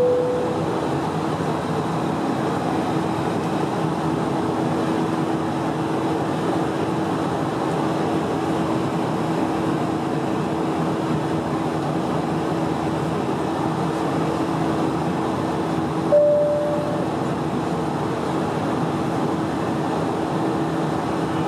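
Steady in-cabin drone of an Airbus A320's IAE V2500 turbofans and rushing airflow during the climb after takeoff, with a constant hum underneath. A cabin chime tone sounds at the very start and once more about 16 seconds in.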